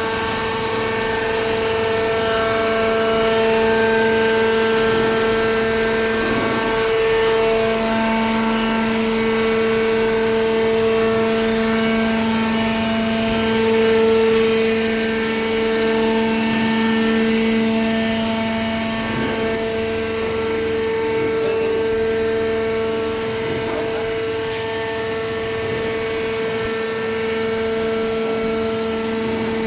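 Industrial hydraulic cardboard baler running: a loud, steady machine drone with a few fixed whining pitches from its hydraulic pump and motor.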